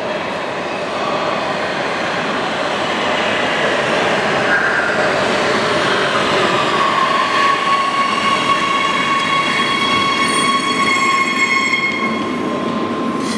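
Oslo Metro MX3000 electric train running into the station and braking to a stop: a steady rumble of wheels on rails, with a whine setting in about halfway and falling slightly in pitch, and several higher tones joining it in the last few seconds as it slows.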